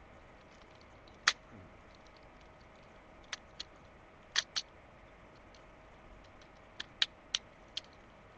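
Hard plastic clicks and snaps from a Transformers Armada Optimus Prime toy's joints and panels as it is transformed by hand: one sharp click about a second in, then scattered clicks in pairs and small clusters.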